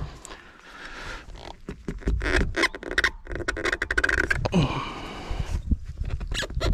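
Irregular scraping, creaking and squeaking with a few knocks as fuel-filter parts are handled and screwed together.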